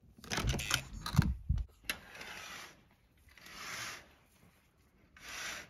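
Hotel room door being unlocked with a keycard and opened: the handle and latch clunk and rattle for about two seconds, ending in a sharp click. Then three soft rushing swells of noise follow.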